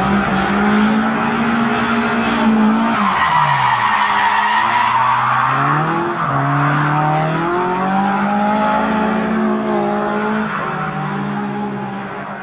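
Race car engines revving, the pitch rising and falling, with tyres squealing; the sound fades near the end.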